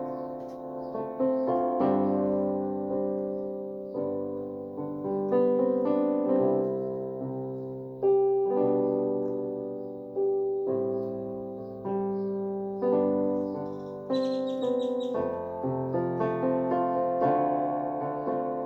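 Piano voice of a Yamaha PSR-E333 portable keyboard playing a slow piece. Chords are struck every second or two and left to ring and fade, with a brief high flourish about three-quarters of the way through.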